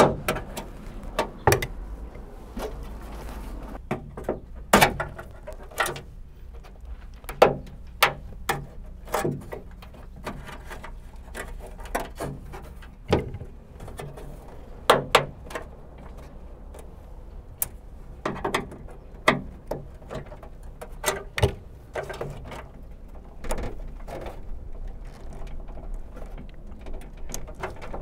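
Irregular sharp clicks and knocks of plastic wiring-harness clips being pushed, pried with a flathead screwdriver and popped out of a Honda Civic trunk lid's inner panel.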